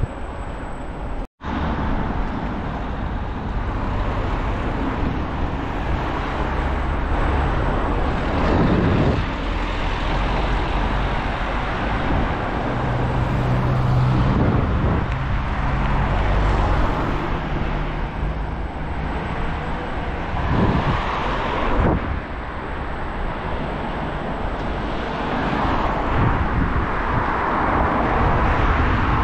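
Road noise heard from a moving scooter: a continuous rush of wind and tyre noise with cars passing and a car engine humming nearby. The sound cuts out completely for a moment about a second in.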